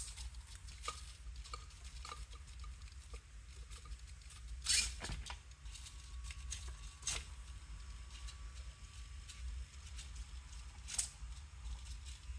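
Small hobby servos of a 3D-printed desktop robot arm moving it to grab a ball: faint scattered ticks and clicks, with a few sharper clicks and a faint thin whine for a few seconds in the middle.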